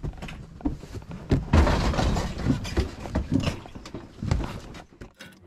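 An irregular string of thumps and knocks with rustling, from a person crawling across a pop-up camper's bed and clambering over its counter and cabinet.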